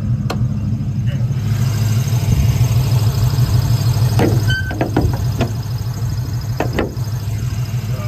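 1995 Mustang GT's 5.0-litre (302) V8 idling with a choppy beat from a misfire the owner has not yet traced. A few sharp clicks and knocks come about halfway in, as the hood is unlatched and lifted.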